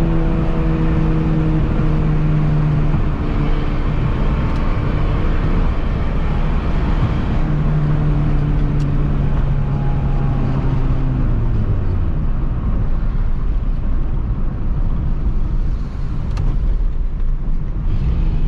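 Peugeot 206 1.4 four-cylinder engine through a straight-piped exhaust while driving: a steady drone that eases off and drops in pitch about eleven seconds in as the engine slows.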